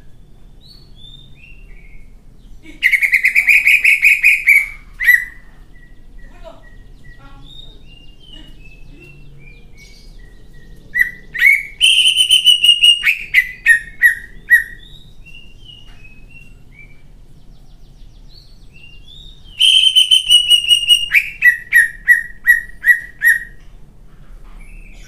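Caged male green leafbird (cucak ijo) singing in three loud bursts, each a fast string of sharp, repeated notes in the harsh, rapid-fire 'nembak' style, with soft scattered chirps between the bursts.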